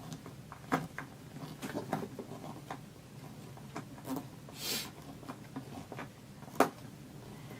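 Plastic shop vac parts being handled and fitted together by hand, with scattered clicks and knocks and a short rustle about halfway through.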